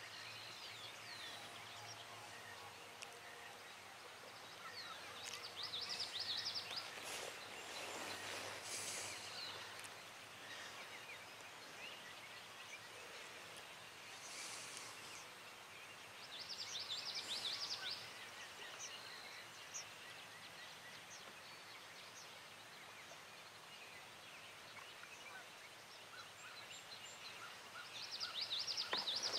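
Songbirds calling over quiet open-air ambience, with a loud trilled song three times, about six seconds in, in the middle and near the end. A short rush of noise comes about eight seconds in.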